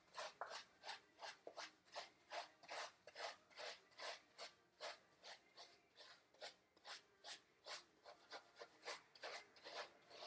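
Yuppie Puppy grooming brush scrubbing through a standard poodle's wet, shampoo-lathered curly coat: a faint, rhythmic rasping, about three strokes a second, as the colour shampoo is spread.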